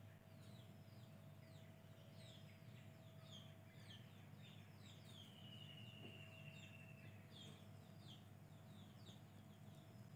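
Faint birds chirping in many short calls, with one longer call about five seconds in that glides slightly downward, over a steady low hum.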